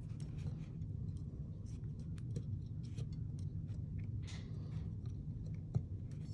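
Scattered small clicks and brief light rustling as wires are pushed and pressed into a metal airsoft gearbox shell by hand, over a steady low hum.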